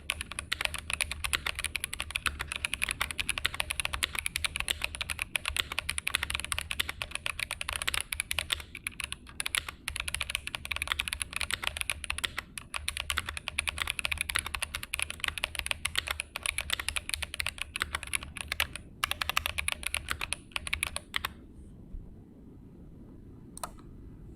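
Fast typing on a GMMK Pro mechanical keyboard with an aluminum plate, stock GOAT stabilizers, stock Boba U4T tactile switches and GMK keycaps: a dense, continuous run of keystrokes with a couple of brief pauses. The typing stops about 21 seconds in, and one last keystroke comes near the end.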